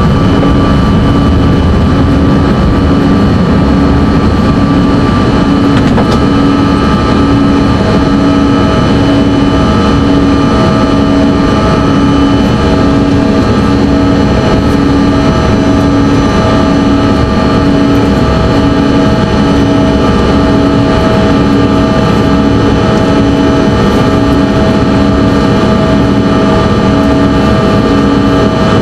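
Cabin noise inside a Bombardier CRJ-200 climbing after take-off: the steady drone of its rear-mounted GE CF34 turbofans at climb power over rushing air. A low hum in it throbs in a regular beat, and another steady whine comes in about eight seconds in.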